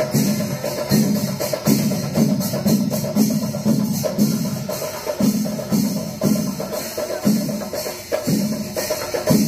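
Percussion ensemble of drums and cymbals playing a fast, steady rhythm, the kind of festival drumming that goes with a temple elephant procession.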